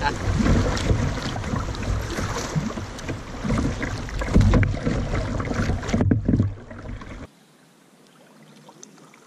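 Wind buffeting the microphone over the rush of river water around a kayak moving through a shallow riffle. It cuts off suddenly about seven seconds in, leaving only a faint quiet background.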